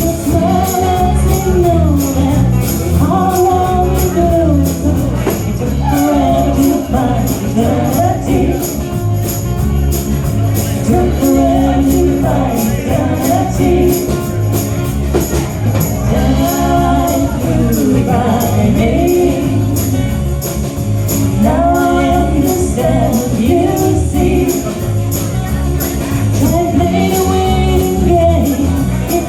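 A band playing an instrumental passage of a song, with a steady, bright high percussion beat over bass and a melodic lead line.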